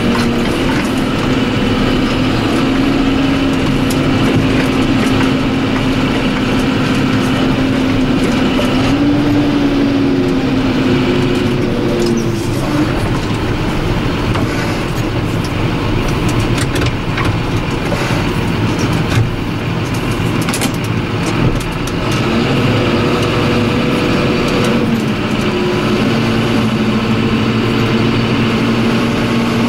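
John Deere 7530 tractor's diesel engine running under load, its pitch rising and falling a few times as the revs change, with rattles and knocks from the tractor and the Marston grain trailer.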